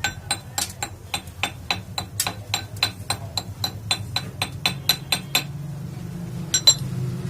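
A hammer striking steel in quick, evenly spaced blows, about four a second, each with a metallic ring; they stop about five seconds in. Two sharper taps follow near the end, over a steady low hum.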